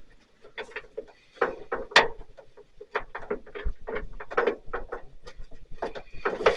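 Irregular light metal clicks and knocks of tools and a hood hinge repair plate being handled and lined up on a truck hood hinge.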